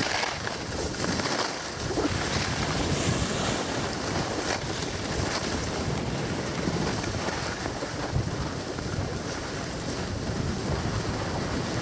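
Steady rush of wind buffeting the camera microphone during a run down a groomed ski slope, mixed with the hiss of sliding over packed snow.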